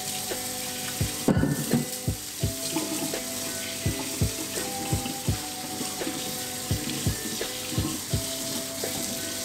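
Kitchen tap running into a stainless steel sink as celery stalks are rinsed under the stream, with a louder splash about a second in. Background music with a steady beat plays underneath.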